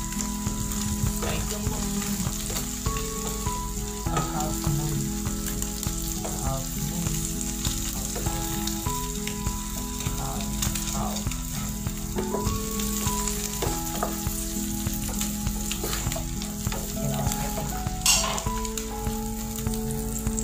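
An egg omelette frying in hot oil in a non-stick frying pan, sizzling steadily, with small scrapes and taps of a wooden spatula as it is turned and lifted. There is one louder knock near the end.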